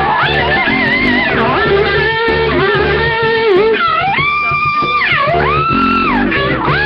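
Live rock band playing an instrumental section: an electric guitar solo of sliding leaps up and down in pitch with held notes, over bass guitar and drums.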